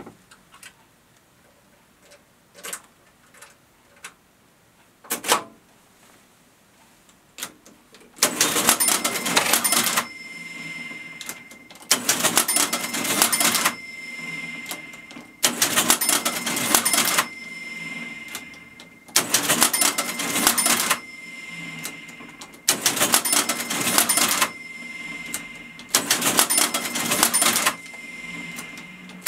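NCR Class 6000 cash register: a few separate key clicks, then from about eight seconds in, six long clattering machine cycles, each about a second and a half and repeating every three and a half seconds. The cycles print a department-by-department sales settlement onto the paper tape.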